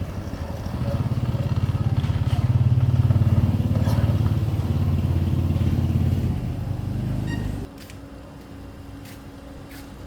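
A small petrol engine running steadily under load, then dropping abruptly to a quieter hum near the end, as if throttled back.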